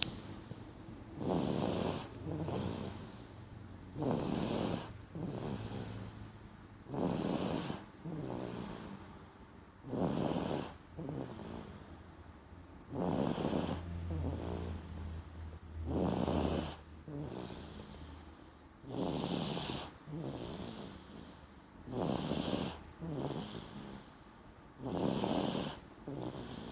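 A sleeping baby snoring in a steady rhythm: a louder snore about every three seconds, each followed by a softer one.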